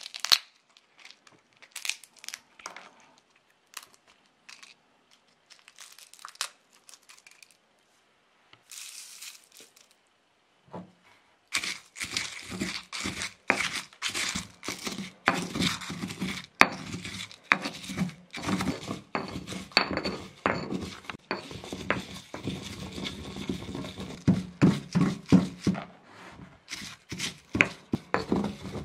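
Dried chili pod crinkling and tearing between the fingers, then, a little before halfway, a stone pestle pounding and grinding dried chili in a stone mortar in rapid repeated strokes.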